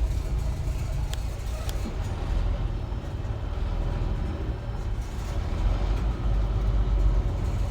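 Steady low rumble of a semi-truck's diesel engine and cab, heard from inside the cab while creeping in slow traffic, with a couple of faint ticks.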